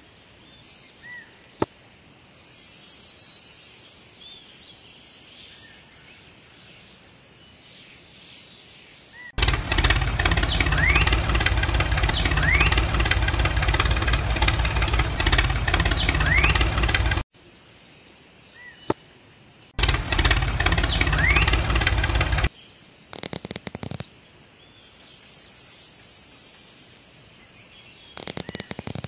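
A small motor runs loudly and steadily for about eight seconds, starting and stopping abruptly, then again for a couple of seconds, with short stuttering bursts after. Birds chirp in the background before and during it.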